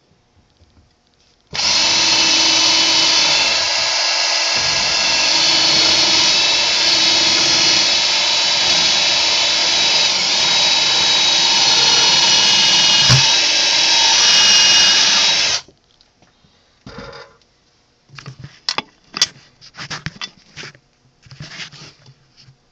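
Power drill running at a steady speed for about fourteen seconds, boring through a plug, with a steady motor whine; it starts and stops abruptly. Afterwards come scattered clicks and knocks.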